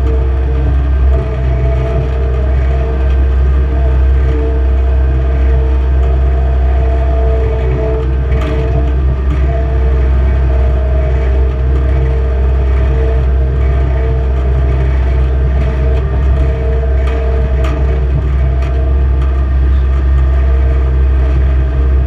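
Skid steer engine running steadily under load, heard from inside its open cab: a loud, even low rumble with a steady hum above it and occasional clicks and rattles.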